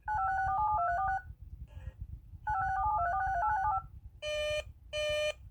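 Electronic alert tones from an emergency-alert radio broadcast: a short stepped melody of beeping notes played twice, then a run of evenly spaced single beeps, about one every 0.7 seconds, starting about four seconds in.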